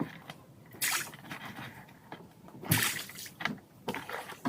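Water splashing in two short bursts about two seconds apart, with lighter sloshing and dripping between.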